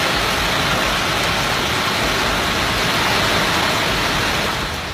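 Heavy hail and rain pelting down in a dense, steady hiss that drops away near the end.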